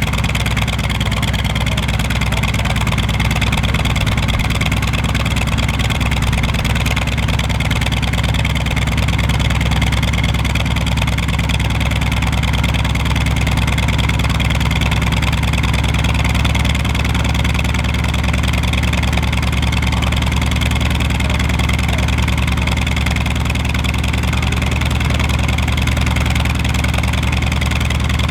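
North American T-28 Trojan's radial engine running steadily at idle.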